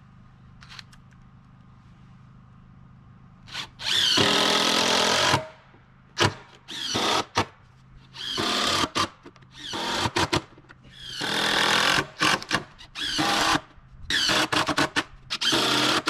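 Cordless drill driving deck screws into wooden deck boards: one longer run about four seconds in, then a string of short runs as each screw is driven home.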